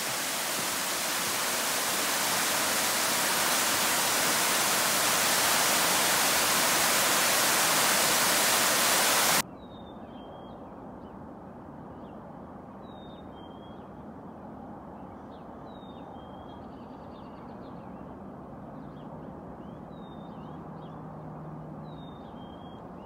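A loud, steady rushing hiss that builds slightly, then cuts off abruptly about nine seconds in. After it, a quiet outdoor background with a bird giving a short chirp every two to three seconds.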